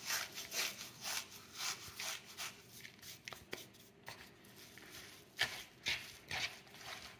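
Crackers being crushed and crumbled between the hands, a run of short dry rubbing strokes, then a spoon and hand stirring them into a soft patty mixture in a plastic bowl. The strokes thin out midway and come back stronger near the end.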